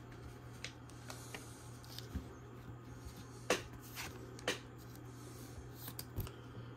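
Trading cards being handled in clear plastic sleeves: scattered light clicks and ticks, two sharper ones around the middle, over a faint steady low hum.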